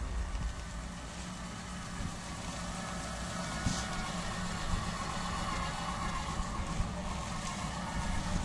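A motor vehicle engine running steadily at low speed.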